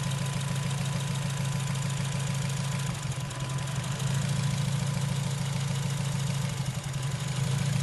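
Honda K20 inline-four in a Civic FD idling roughly, the idle wavering briefly about three seconds in and again near the end. The number-3 ignition coil has failed, so the engine misfires and runs on only three cylinders.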